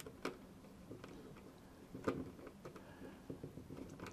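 Faint, scattered clicks of a small screwdriver turning a tiny screw down through a circuit board into the hotspot case, two of them a little louder, near the start and about halfway.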